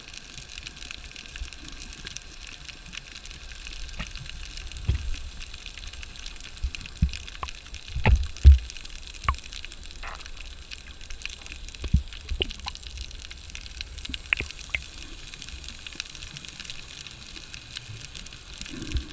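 Underwater sound through a GoPro's waterproof housing while snorkeling: a steady hiss with a string of muffled low thumps and knocks from water moving against the housing as the swimmer kicks, the loudest about eight seconds in, and scattered faint clicks.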